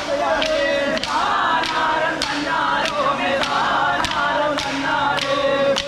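A group of men singing a Bharani pattu devotional song together, keeping time with sharp clacks of sticks struck together, about two a second.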